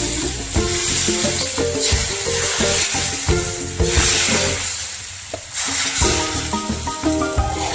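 Thin rice batter sizzling and frying on a hot oiled pan, a steady hiss under background music.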